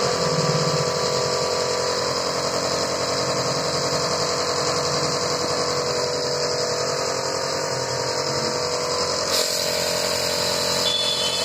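A motor or engine running steadily with a constant whine over a wide hiss; the sound shifts slightly about nine seconds in.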